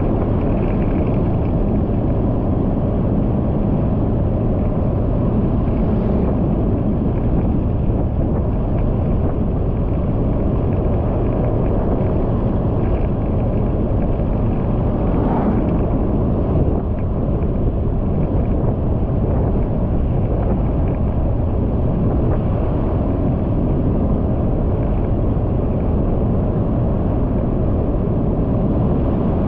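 Steady rumble of wind and road noise from a vehicle travelling at about 50 km/h, even and unbroken throughout.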